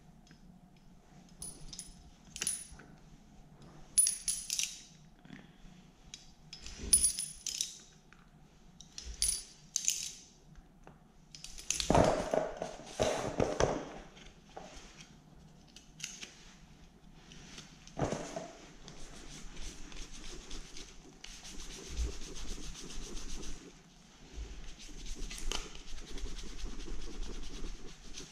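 Small metal parts clinking and a plastic chainsaw sprocket cover knocked about while dried sawdust is picked out of it, with the loudest clatter about halfway through. From about two-thirds of the way in, a steady scrubbing as a brush is worked over a metal plate.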